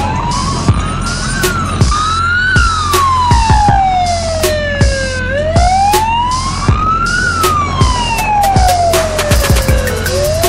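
Music with a heavy drum beat and a siren wailing slowly up and down over it, about one rise and fall every five seconds; the high ticking of the beat quickens into a fast run near the end.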